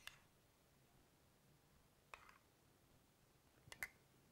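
Near silence broken by a few light clicks of a metal spoon against dishes as mayonnaise is scooped out. There is one click at the start, one about two seconds in, and a quick double click with a short ring near the end.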